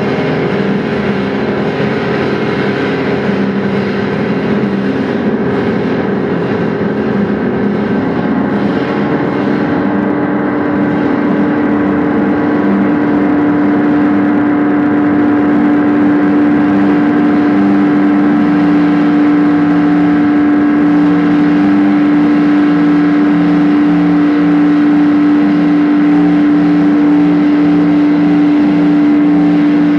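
Live drone music: many sustained tones layered into a dense, unbroken wall of sound. A strong steady low tone swells in about a third of the way through, and the whole grows slightly louder.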